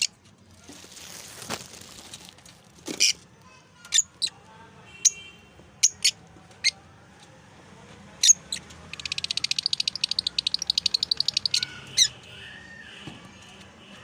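Lovebirds calling: short, sharp high chirps and squawks scattered one at a time, and a rapid run of chatter lasting about two and a half seconds after the middle.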